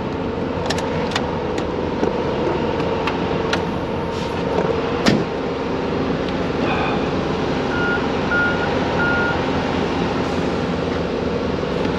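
Steady hum of an idling truck, with light clicks and knocks as gear is handled in the tractor's side storage box, the sharpest knock about five seconds in. Three short high beeps sound near the end.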